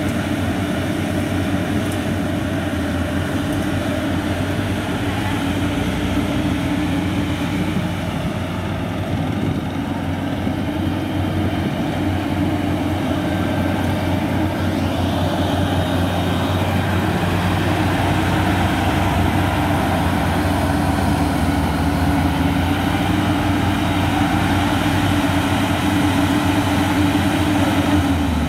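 Yanmar YH850 rice combine harvester running steadily under load while harvesting, its diesel engine droning evenly with the threshing machinery working.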